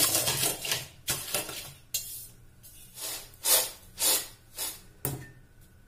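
Roasted peanuts scraped and crushed under a steel bowl in a steel pan, then tossed in the pan several times to winnow off their loosened skins, each toss a short rattle of nuts against the metal.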